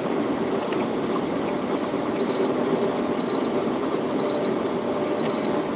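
Steady road and engine noise inside a moving truck's cab at highway speed. From about two seconds in, a short high double beep repeats about once a second.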